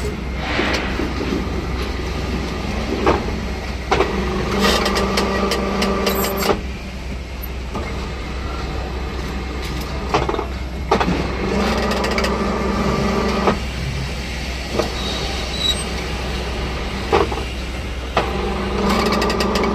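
Rebar ring bending machine working through repeated cycles over a steady low hum. Its motor whines for two to three seconds roughly every seven seconds, with sharp knocks between the runs.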